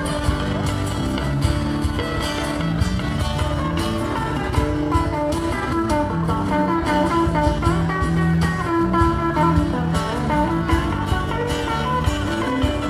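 Live band playing an instrumental passage: guitars picked and strummed over a bass guitar line and a steady cajón beat, with a guitar playing a melody above.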